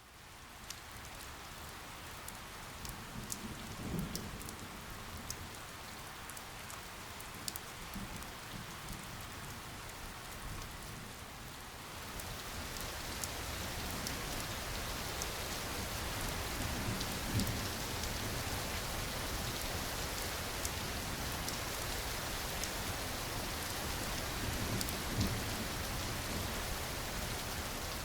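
Steady rain falling, with scattered individual drops ticking. It grows louder and heavier about twelve seconds in, and there are a few soft low rumbles.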